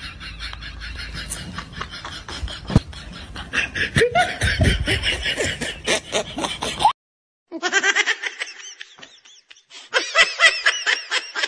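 Laughter sound effects: a stretch of quick, pulsed laughing, a clean cut to silence about seven seconds in, then another clip of rapid, high-pitched laughter.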